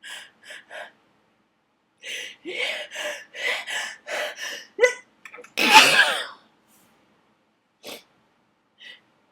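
A person sneezing, set off by attic dust in a sneezing fit: a run of quick gasping in-breaths builds over about three seconds into one loud sneeze a little past the middle, followed by a couple of short sniffs.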